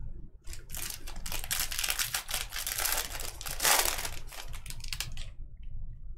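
Silvery foil wrapper of a Bowman Draft baseball card pack crinkling and being torn open: a dense crackle of many fine clicks lasting about five seconds, loudest shortly before it stops.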